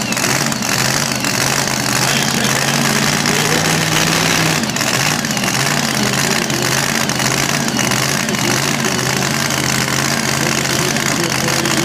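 Supercharged engine of a super modified 2WD pulling truck idling steadily, a little stronger in the first few seconds.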